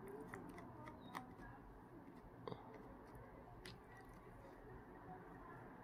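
A few faint clicks of a small T2 Torx screwdriver working a tiny screw out of a Huawei P8 phone's bottom edge, over quiet room tone; the clearest click comes about two and a half seconds in.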